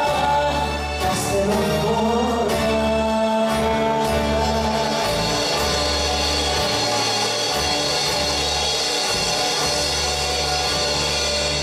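Live Greek popular song played by a school ensemble of piano, acoustic guitars and plucked strings, with a female lead singer and choir. About two and a half seconds in the music settles on a long held chord.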